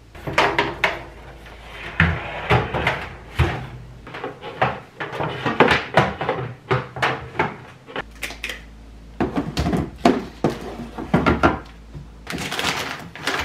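A run of knocks, clunks and clicks from household things being handled and put away: cabinet and appliance doors and a kitchen drawer, with plastic food packets rustling. The rustle is loudest near the end.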